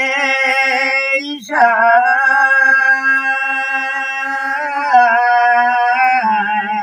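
An elderly man and woman singing a Nepali village song together, unaccompanied, in long drawn-out held notes. One phrase breaks off about a second and a half in and the next starts straight away.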